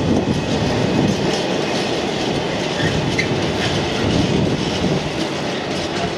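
Freight train's empty container flat wagons rolling past, steel wheels rumbling on the rails. The sound eases a little near the end as the last wagons go by.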